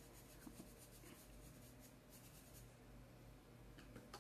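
Faint, quick repeated scratching of a paintbrush scrubbing fabric paint onto coarse black sackcloth. The strokes stop a little past halfway through.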